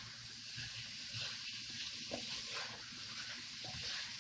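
Chicken pieces sizzling as they sear in a hot nonstick sauté pan and are stirred with a silicone spatula: a faint, steady frying hiss with a few light ticks.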